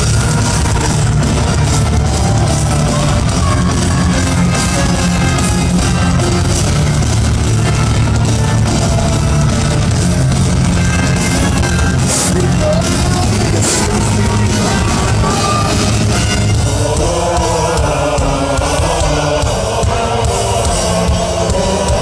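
Heavy metal band playing live and loud through the PA, with drums, guitars and singing, heard from within the audience.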